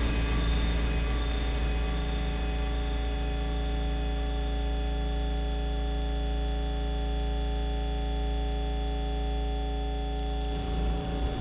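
A steady hum of several held tones over a low rumble. About ten and a half seconds in, the rumble turns uneven.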